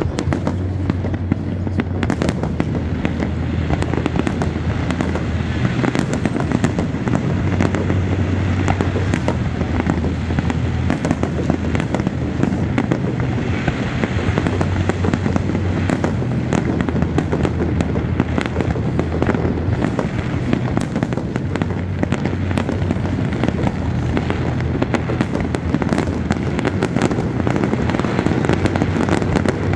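Fireworks display: a dense, continuous run of aerial shell bangs and crackling bursts with a low rumble underneath.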